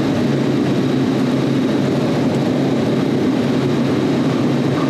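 Loud, steady machine-room drone of refrigeration rack compressors and condenser fans running, with a constant low hum.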